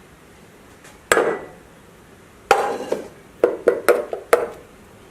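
Kitchenware knocking against a bowl: two ringing knocks more than a second apart, then four quicker clinks. The fried-garlic olive oil is being added to a honey and garlic paste.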